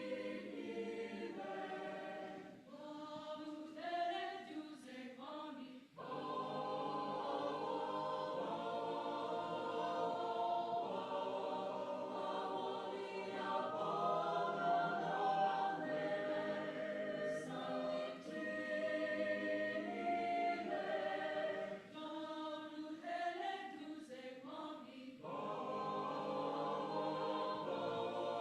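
Mixed choir singing an isiXhosa prayer song in traditional South African style, with much repetition. The full choir twice thins to a few voices and then comes back in full.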